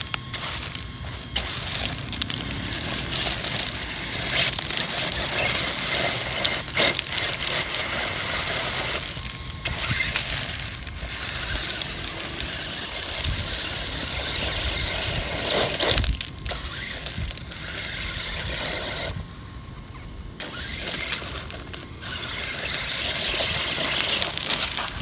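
Radio-controlled rock crawler on an Axial SCX10 chassis, its electric motor and gears whining while the tyres scrabble over loose crushed stone and rocks clatter. The sound breaks off and changes abruptly several times.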